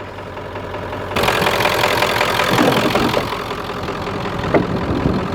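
1995 Ford F350's 7.3 L Powerstroke turbo-diesel V8 idling steadily. The noise gets louder and hissier about a second in, and there is a single sharp click near the end.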